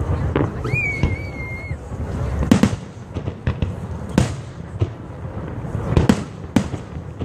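Aerial fireworks shells bursting overhead: about four loud bangs in the second half, with fainter pops between, over a steady low rumble. A short high whistle sounds about a second in.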